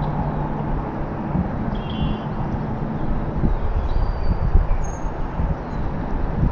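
Steady low outdoor rumble, with a few short faint bird chirps over it about two, four and five seconds in.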